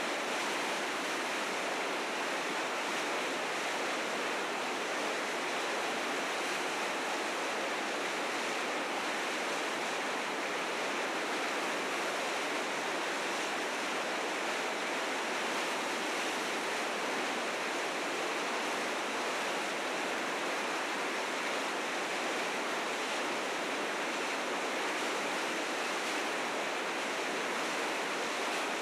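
River rapids rushing steadily, a dense unbroken roar of white water swollen with spring snowmelt.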